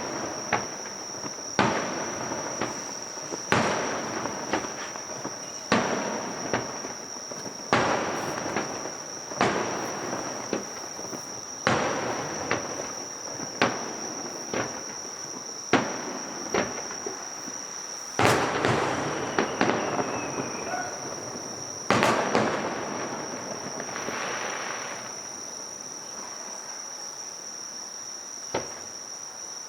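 Aerial fireworks bursting, a sharp bang every second or two, many followed by crackling, thinning out near the end to a few single bangs. A steady high-pitched insect trill runs underneath.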